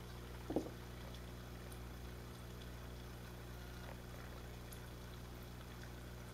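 Faint aquarium ambience: a steady low hum of running tank equipment with light water bubbling and trickling. One short, louder knock about half a second in.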